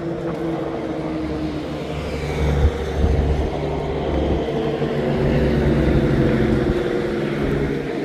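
Engine hum and road noise of a moving vehicle, heard from inside it: a steady low drone with a few steady engine tones, getting a little louder around the middle, with a short thump about two and a half seconds in.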